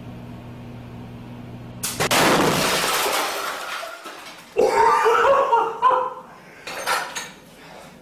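Microwave oven humming, then about two seconds in a sudden loud bang as the wine box inside bursts, with a rush of noise fading over about two seconds. Voices cry out about a second later.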